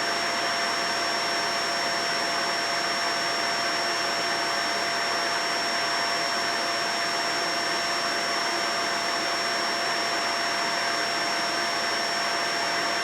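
Vacuum cleaner running steadily: an even whooshing motor noise with a high, constant whine on top.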